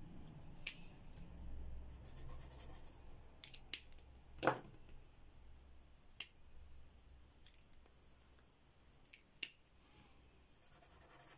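Faint, scattered clicks and taps of plastic felt-tip markers being uncapped, recapped and set down on a tabletop, the sharpest about halfway through, with a light scratch of a marker tip on paper.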